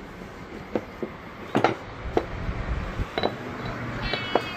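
A string of sharp metallic clicks and knocks at uneven intervals, about eight in all, the loudest about a second and a half in.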